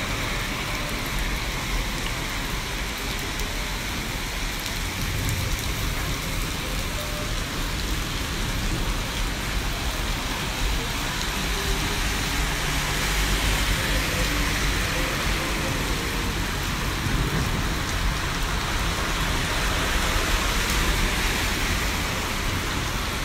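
Heavy rain pouring onto a flooded street and pavement: a dense, steady hiss of downpour, a little louder in the second half.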